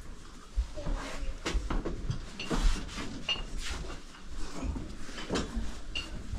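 Small knocks, clicks and a few brief ringing clinks of dishes and glassware being handled, over low thumps of footsteps and movement in a small room.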